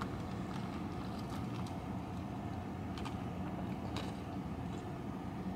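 Steady low hum of a car idling with its air conditioning running, heard inside the cabin, with faint clicks about three and four seconds in.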